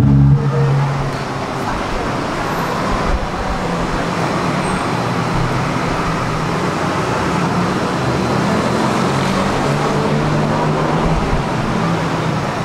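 Steady, even hubbub of crowd and venue noise with no music playing, as performers take the stage before a song.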